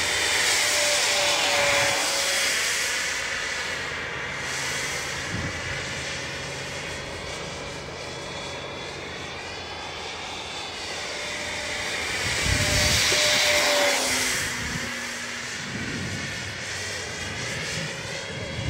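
Electric ducted fan jet (a Zagi flying wing with a 70 mm EDF) flying past, its fan whine and rush swelling and fading twice, loudest about a second in and again about thirteen seconds in, the whine dipping slightly in pitch as it goes by.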